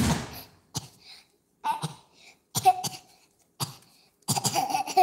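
A child coughing in short separate bursts about a second apart, coming closer together near the end.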